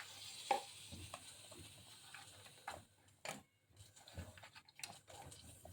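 Faint, scattered light taps and clicks in a kadhai as chopped dry fruits are added to sweet vermicelli cooking in milk.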